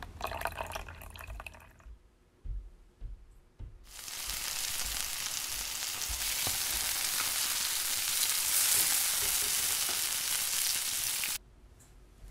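Bacon and French toast sizzling in a frying pan, a loud steady hiss that starts about four seconds in and cuts off suddenly near the end. A few knocks come just before it.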